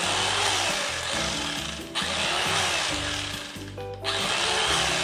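Electric carving knife running as it slices smoked pork loin, its motor cutting out briefly about two seconds in and again for about half a second near the end, over background music.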